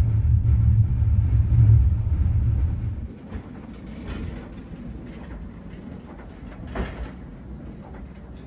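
Larreineta funicular car running on its rails: a heavy low rumble that cuts off suddenly about three seconds in, then a quieter rolling sound with a few wheel clacks on the track, the sharpest a little before the end.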